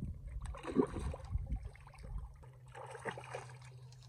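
Water sloshing and splashing close by in two irregular bursts, about a second in and again about three seconds in, over a steady low hum.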